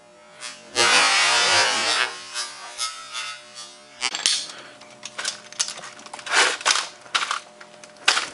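A sledgehammer crashes into a laptop's LCD screen about a second in; the crash of glass and plastic lasts about a second. From about four seconds in come a string of sharp clicks and knocks as the cracked screen is handled.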